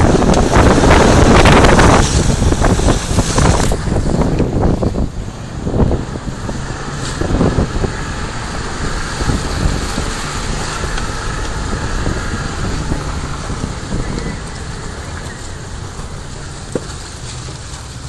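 Off-road vehicle crawling over snow and fallen pine branches, with loud crackling and scraping for the first four to five seconds, then its engine running steadily at low speed.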